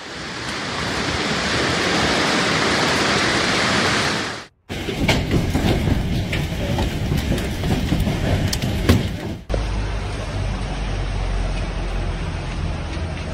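Heavy hail and rain pelting down in a dense, steady hiss; after an abrupt cut about four seconds in, hailstones clatter with many sharp separate impacts, and after a second cut near the middle a lower, steady downpour.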